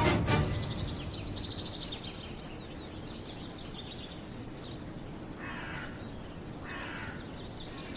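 Outdoor garden ambience with small birds chirping, and two short harsh crow caws about a second apart in the second half.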